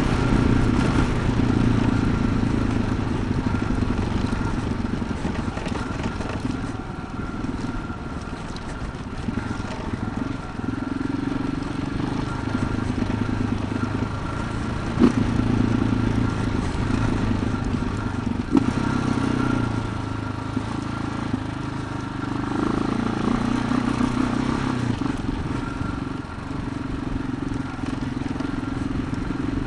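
Adventure motorcycle's engine running at riding speed on a gravel dirt road, its note swelling and easing every few seconds with the throttle. Two sharp knocks are heard midway.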